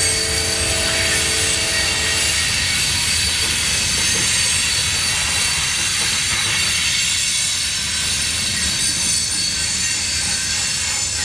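Freight cars of a Norfolk Southern mixed freight train rolling past steadily with a low rumble and a thin, continuous high wheel squeal. A multi-tone train horn chord sounds over it and stops about two seconds in.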